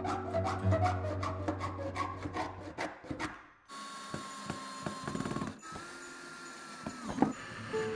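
A hand tool rasping or scraping wood in quick repeated strokes, over background music. It cuts off about halfway through, and a quieter sound with a faint steady high tone follows.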